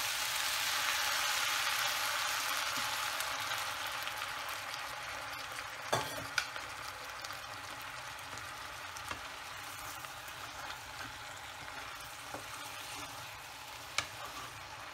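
Water sizzling in a hot wok of cut vegetables, loudest at first and slowly dying down. A wooden spatula stirs the vegetables and knocks against the pan a few times, about six seconds in and near the end.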